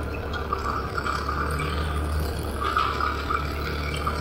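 Motorcycle engine running steadily while riding over a dirt trail, with light rattles and ticks from the bike on the rough surface.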